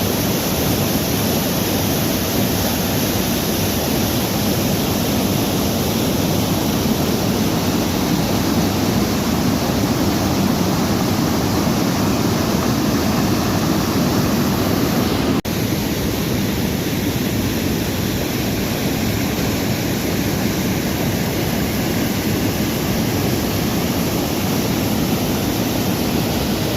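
Steady rush of a waterfall and river rapids, loud and even, with a slight shift in level about halfway through.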